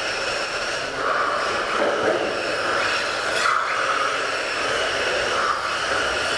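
Whine of small electric RC touring-car motors and gearing, swelling and dipping with throttle as the cars lap.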